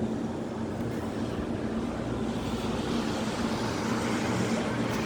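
Rain falling in a storm with wind, a steady rushing noise with a low steady hum beneath it; the rain grows heavier toward the end.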